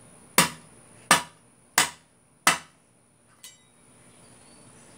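A shovel blade strikes hard and repeatedly on a fidget spinner lying on concrete. There are four sharp hits about two-thirds of a second apart, then a faint tap about a second later.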